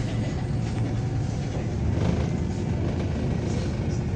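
NefAZ 5299 city bus heard from inside the passenger cabin while moving slowly: a steady low engine drone with road and body rumble.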